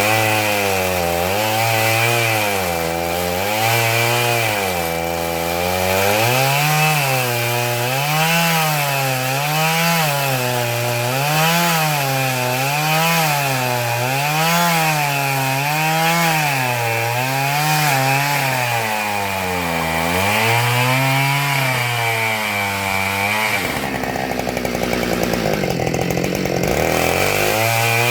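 Husqvarna 572XP chainsaw with a ripping chain running under load, freehand ripping a black locust log lengthwise, its engine pitch rising and falling about every one and a half seconds. Near the end the engine drops to a low idle for about three seconds, then revs back up.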